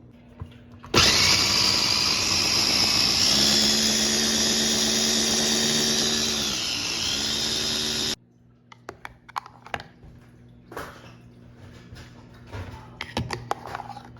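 Electric food chopper motor running at full speed, blending cream cheese, yogurt and honey. It starts abruptly about a second in, dips briefly in pitch near the end, and cuts off suddenly after about seven seconds, followed by light clicks and handling of the bowl.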